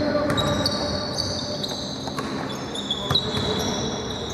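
Basketball bouncing on an indoor court during play, a few separate bounces, with high squeaks from players' shoes over the hall's background noise.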